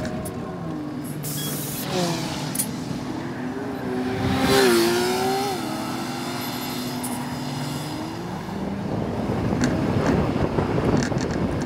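City bus running, its audio sped up with the time-lapse. The pitched engine and transmission whine climbs about two seconds in, peaks around the middle and falls away, over road and wind noise.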